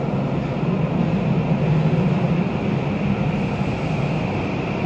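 Tokyu 3020 series electric train pulling into an underground station platform: a loud, steady rumble with a low hum that swells over the first couple of seconds, then eases slightly.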